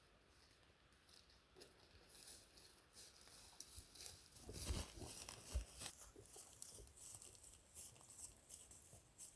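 Faint rustling and crackling, with scattered ticks that build to a louder cluster about five seconds in.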